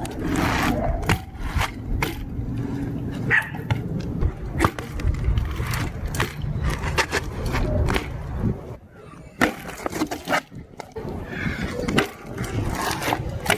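BMX bike riding: tyres rolling on hard ground with a low rumble, broken by many sharp knocks and clatters from the bike's hardware, landings and pegs. The sound eases off briefly about two-thirds of the way through, then picks up again.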